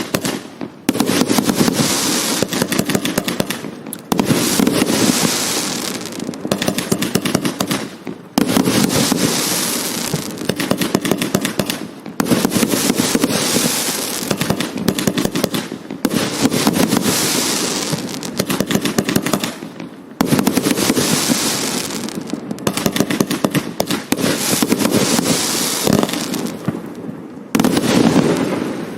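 Hallmark Fireworks 'Organised Chaos' firework firing shot after shot. A fresh burst of dense crackling starts about every two seconds, each one fading before the next.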